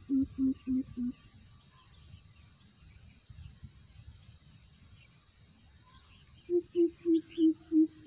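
A coucal giving its deep, evenly spaced hooting call, about three hoots a second: a run ends about a second in, and a new run begins near the end. Faint insect and bird sounds in the pause between.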